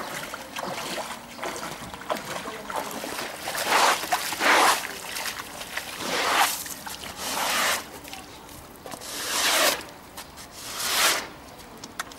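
Feet wading through shallow floodwater, a slosh and splash with each step, coming about every second or two and loudest about four seconds in.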